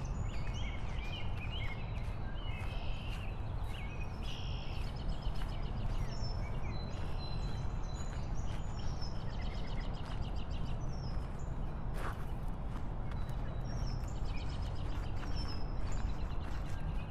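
Steady low rumble of a motorcycle ride with wind on the microphone, while birds chirp and trill repeatedly above it. A single sharp click comes about twelve seconds in.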